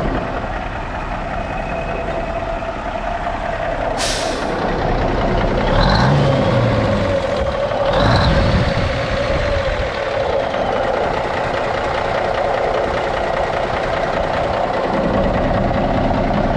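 1996 Freightliner FLD120 semi tractor's diesel engine running steadily. A short, sharp hiss of released air comes about four seconds in, and the engine noise swells briefly twice, about six and eight seconds in.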